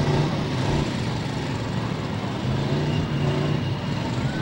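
Several demolition derby cars' engines running and revving in a steady, continuous rumble.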